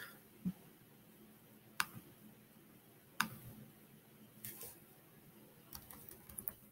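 Faint, scattered computer mouse clicks, about half a dozen spread out with a few in quick succession near the end, as a colour is picked in a colour-picker dialog.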